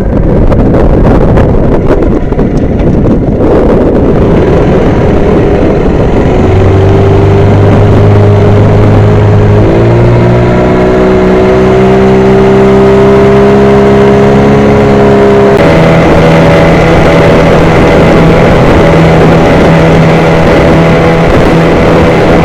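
Boat engine running under way, loud over rushing wind and water. Its steady engine note comes in about six seconds in and changes pitch in steps twice, near ten seconds and again about two-thirds of the way through.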